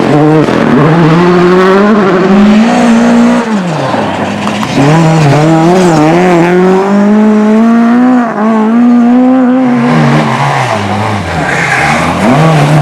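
Race car engine revving hard through the gears, its pitch climbing, then dropping sharply as the driver lifts about a third of the way in and again near the end, before climbing again.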